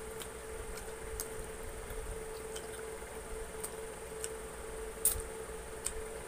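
Close-up eating sounds of chicken and rice eaten by hand: irregular wet clicks and smacks of chewing and lip-smacking, the sharpest about five seconds in, over a steady hum.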